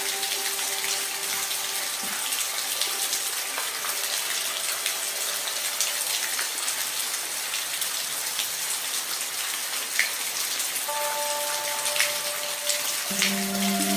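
Steady rain falling, an even hiss with scattered individual drops ticking. Soft sustained music tones under it fade out early on and return near the end.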